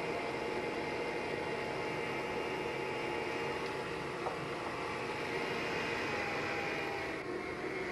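Electric stand mixer running steadily, a constant motor hum and whir as its beater creams butter, sugar and eggs in a steel bowl.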